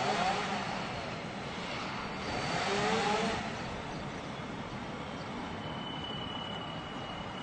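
Chainsaw revving up twice in short swells over a steady hum of city traffic; a thin high whine comes in near the end.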